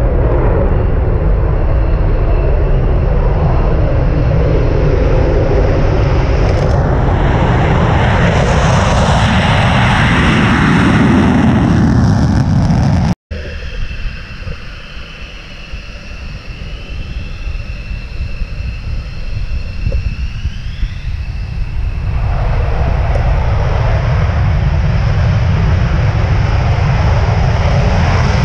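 F-16 fighter jet engines running loud on the runway. The sound cuts out for an instant about 13 seconds in, comes back quieter, and builds again a little after 22 seconds.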